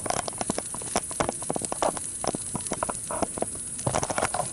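Wood fire in a fire stand crackling, with many irregular sharp pops, over a steady high chirring of insects.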